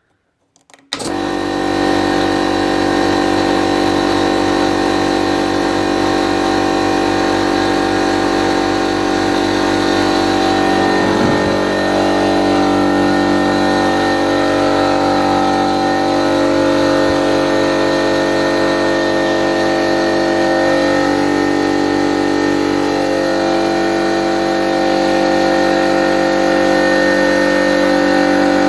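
50-litre electric air compressor running as it fills its tank: motor and piston pump start abruptly about a second in, then run with a loud, steady hum.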